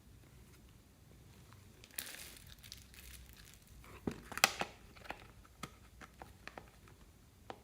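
Slime with floam beads worked by hand, crackling and popping: a soft crackle begins about two seconds in, a cluster of sharp pops comes near the middle, then scattered single clicks.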